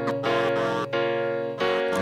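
Instrumental song intro: keyboard chords re-struck about every half second over a held bass note, with a quick falling slide at the start.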